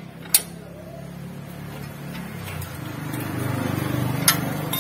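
Sharp metal clinks of a wrench on the steel ball-joint nut of a Mitsubishi L300's front lower suspension arm, once early and again near the end. Under them a low engine rumble grows steadily louder through the second half.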